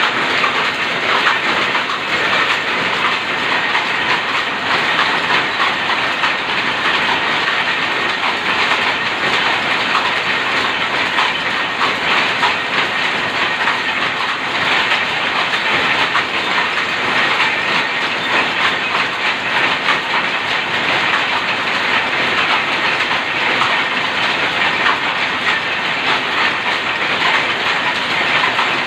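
A weaving shed of power looms, shuttle looms converted to rapier weaving, all running at once: a loud, steady clatter of rapid beats that run together into one dense noise.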